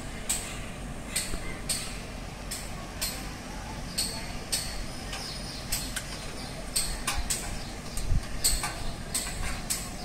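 Irregular sharp clicks and taps of hand tools on the metal parts of an air conditioner's outdoor unit, coming faster and louder in the second half, over a low steady background rumble.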